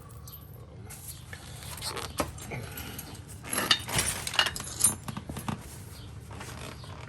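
Loose metal parts and a hand tool clinking and clanking against the tandem trike's metal frame while it is unbolted: a run of irregular sharp metallic knocks, loudest around the middle.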